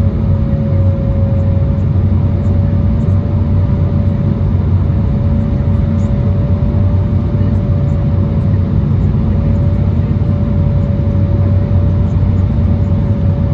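Jet airliner cabin noise heard from a window seat over the wing: a loud, steady low rumble of engines and airflow, with one even tone held above it.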